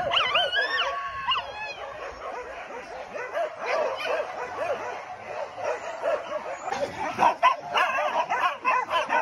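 A pack of boar-hunting dogs yelping and barking, many voices at once. High gliding whines come in the first second or two, and the yelping grows thicker and sharper about seven seconds in.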